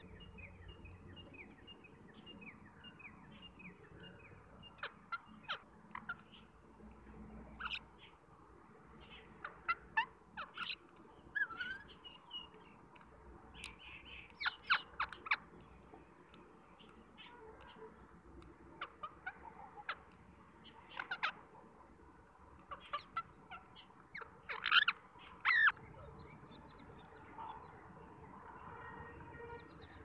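Rose-ringed parakeets calling in short, sharp squawks while feeding, in scattered clusters that are loudest a little before the end, with fainter chirping in the background.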